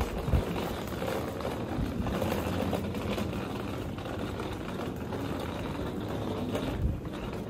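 Steady outdoor background noise while walking, with a low thump about half a second in and another near the end.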